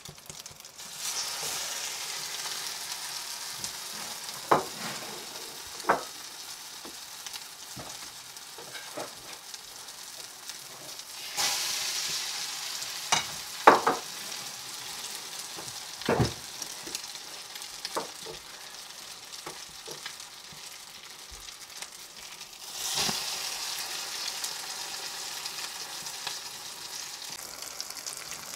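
Village bread coated in egg frying in a pan, sizzling steadily, the sizzle swelling louder three times. A few sharp knocks stand out in the middle.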